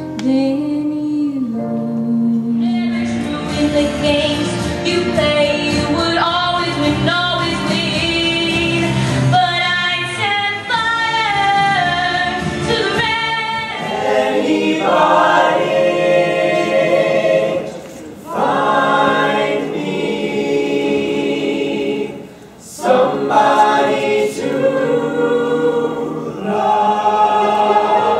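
Mixed teenage a cappella group singing in close harmony with no instruments, male and female voices together, pausing briefly between phrases twice in the latter half. In the first couple of seconds a solo female vocal is still heard before the group comes in.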